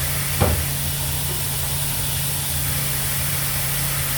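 Steady hum and hiss of a Gerber Sabre 408 CNC router table's vacuum hold-down and dust extraction running, with a single sharp clunk about half a second in as the router changes its tool.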